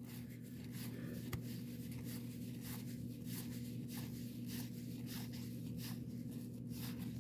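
1990 Donruss baseball cards being thumbed through by hand, card stock sliding and flicking against card stock over and over in an uneven patter, with a steady low hum underneath.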